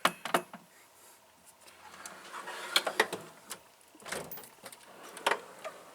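Metal wrenches being handled in a toolbox drawer: a few sharp clinks and clicks spread through, with some rustling and sliding between them.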